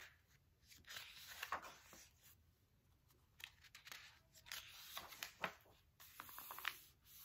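Paper pages of a large picture book being turned by hand: soft paper rustling and flapping in three short spells, about a second in, around four to five seconds in, and again just after six seconds.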